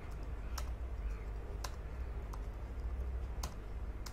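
Computer keyboard keys pressed slowly and unevenly, about five separate clicks, over a steady low hum.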